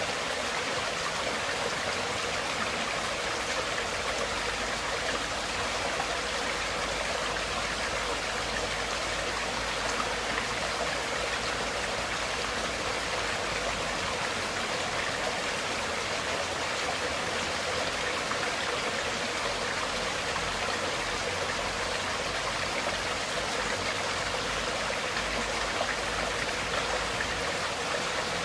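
Flowing water, like a stream, making a steady, unbroken rushing sound that does not change.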